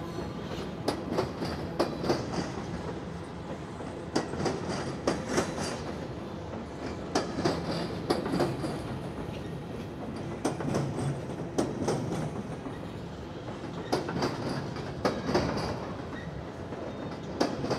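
Norfolk Southern freight train's boxcars and hoppers rolling slowly past, steel wheels clicking and knocking over the rail joints in an irregular run of clacks over a steady rumble.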